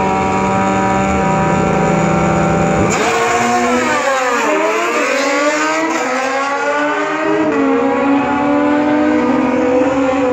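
Two sport motorcycles held at steady revs on the drag-strip start line, then launching hard about three seconds in. Their engines rise and fall in pitch again and again as they accelerate away down the track.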